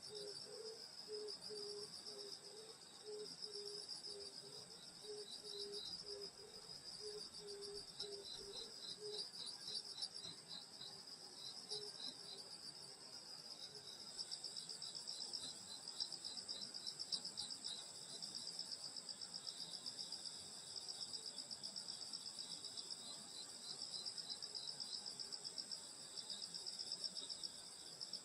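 Night chorus of crickets and other grass insects: several high-pitched trills running together, finely pulsing and overlapping. For roughly the first nine seconds a low short note also repeats a little more than once a second beneath them, then stops.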